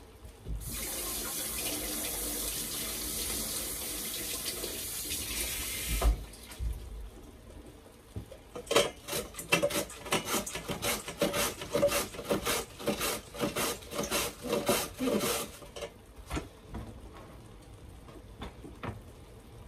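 Kitchen tap running for about five seconds, then shut off sharply. After a short pause comes a quick run of rasping strokes, about three a second for some seven seconds, as cabbage is sliced on a vegetable slicer.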